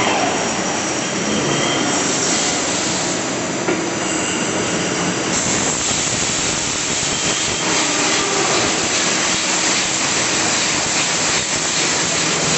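Steady, loud mechanical din of a CNC machine shop floor, with many CNC lathes and their gantry loaders running at once, and a continuous hiss over a rumble.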